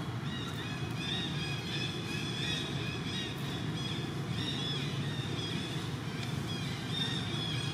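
Outdoor background: a steady low rumble, like distant road traffic, with many short high chirps scattered throughout.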